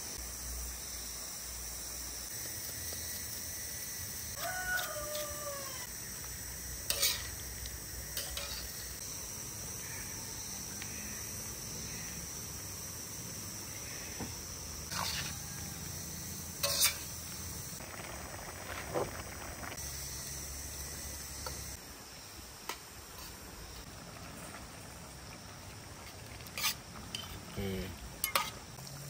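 Cooking utensils clinking and knocking against a pan every few seconds over a steady hiss. A short falling animal call sounds once about five seconds in.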